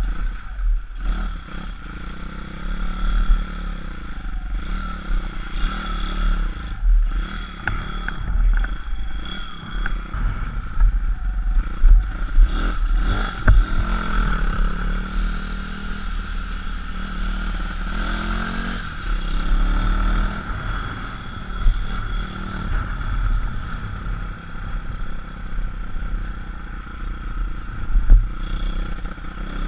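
Small motorbike engine running as it is ridden, its pitch rising and falling with the throttle, under heavy wind rumble on a helmet-mounted microphone, with rattles and knocks scattered through.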